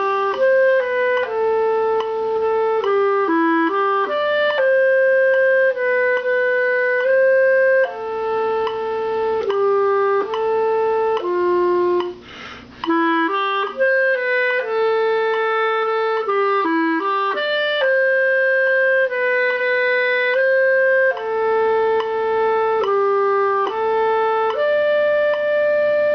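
Solo clarinet playing a slow, lyrical melody of held notes. The phrase starts again after a short breath about halfway through, played louder the second time, the step from mezzo piano to mezzo forte.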